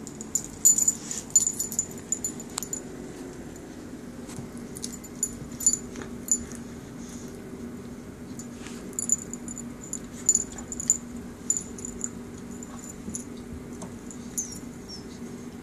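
Dogs play-wrestling: a metal chain collar and tag jingling in bursts as one dog rolls and paws on its back, with dog play noises.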